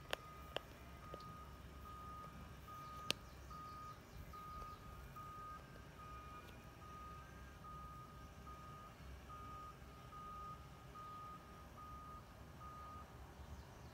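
A vehicle's reversing alarm beeping faintly, one steady-pitched beep a little under every second, stopping about a second before the end. A single sharp click sounds about three seconds in.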